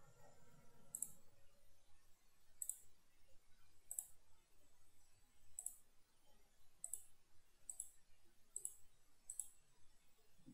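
Faint computer mouse button clicks, about eight of them spaced irregularly a second or so apart, over a faint low hum.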